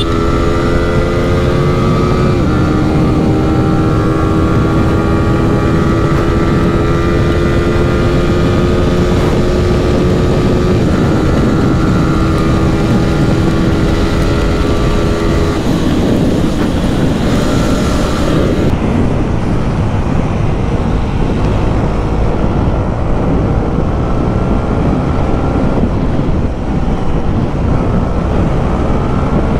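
Yamaha R15 V4's single-cylinder engine running hard at highway speed under heavy wind rush. Its note steps down in pitch three times as it is shifted through the gears. In the second half the engine sinks under a steady roar of wind and road noise.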